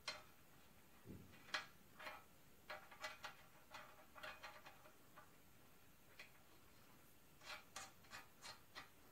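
Faint scattered clicks and light metal taps as small steel pieces are fitted into a bolt hole in a cast-iron engine block, with a soft low thump about a second in.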